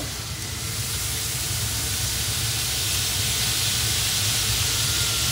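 Steady hissing sizzle of mop sauce being brushed onto hot smoked pork butts on a pellet grill grate, growing slowly stronger, over a low rumble.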